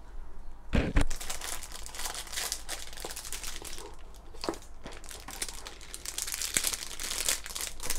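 Clear plastic bag crinkling without a break as a microphone in its bag and its coiled cable are handled and lifted out of their case, with a thump about a second in.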